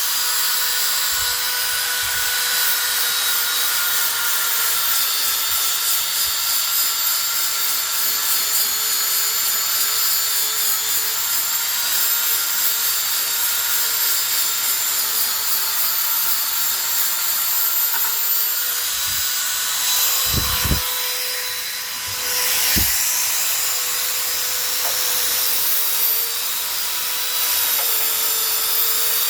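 Electric sanding tool working on wood: a steady, high motor whine with the rasp of abrasive on the wood surface. The pitch sags a little now and then as it is pressed in, and the sound eases briefly about two-thirds of the way through.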